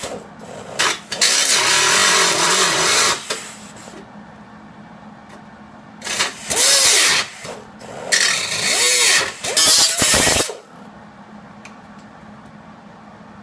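Power cutting tool running in three bursts, its pitch dipping and rising as it loads up, cutting off a spot weld on a steel rocker panel.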